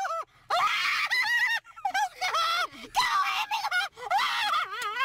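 A woman screaming in about four high-pitched shrieks of a second or so each, with short breaks between them.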